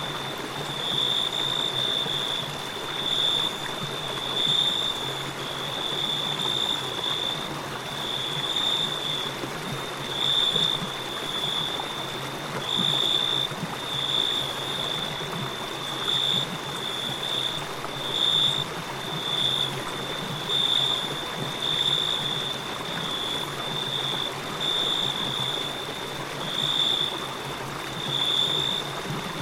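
Crickets chirping on one high note, about once a second, over the steady rush of a flowing river.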